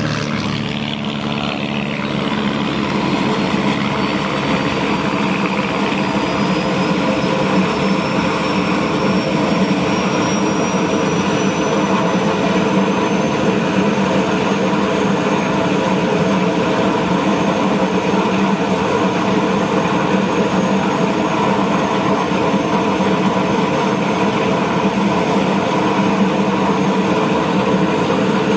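Sikorsky S-58DT helicopter's coupled Pratt & Whitney PT6T turboshaft engines running on the ground with the rotors turning during start-up: a steady turbine drone under a high whine that rises in pitch over the first ten seconds or so, then holds steady.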